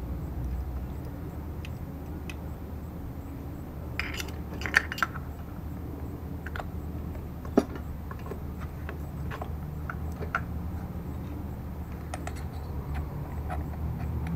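Small metallic clicks and clinks of a carburetor float bowl and its bowl nut being handled and fitted back on by hand, with a cluster of sharper clinks about four to five seconds in and a single sharp one about seven and a half seconds in. A steady low hum runs underneath.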